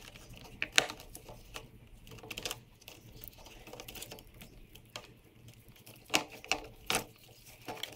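Scattered light plastic clicks and rattles as the motor controller is worked loose from the Honda Motocompacto's plastic storage box, a few sharper clicks near the end.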